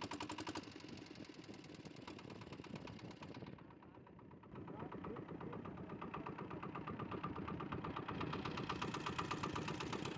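Boat engine running with a rapid, even knocking beat; it dips briefly about four seconds in, then runs on a little louder.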